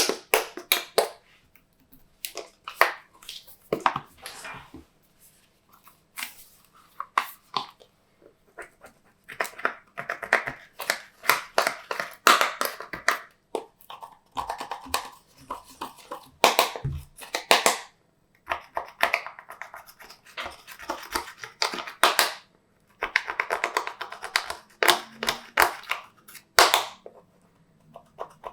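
Glossy slime being squished, folded and stretched by hand, making sticky clicks and crackling in irregular spells with short pauses between them.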